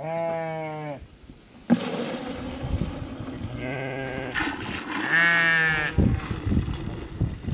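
Sheep bleating, one long bleat at the start and more about four to five seconds in. From about two seconds in, fresh sheep's milk is poured from a metal bowl into a plastic bucket with a steady rushing splash, set off by a knock.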